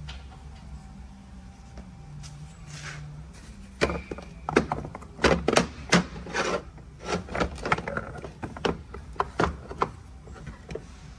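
Irregular clunks and clicks of a cast-aluminium transmission housing being gripped, turned and knocked about on the workbench, starting about four seconds in and going on for some six seconds, over a low steady hum.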